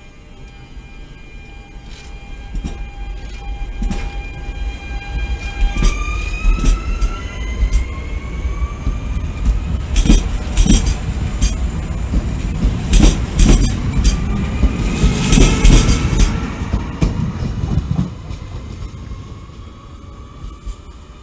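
A regional passenger train pulling out of a station and accelerating away. A whine rises in pitch as it picks up speed, with sharp clicks and clatter from the wheels over rail joints. The sound is loudest as the coaches pass close by, then fades as the train draws away near the end.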